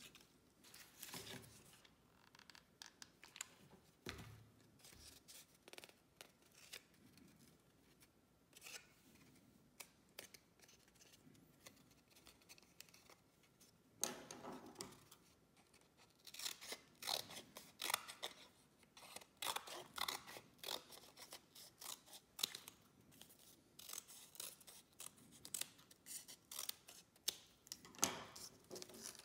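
Scissors making short snips through thin printed packaging card, with the rustle and crinkle of the card being handled and bent. The snipping is sparse at first and comes thick and fast from about halfway through.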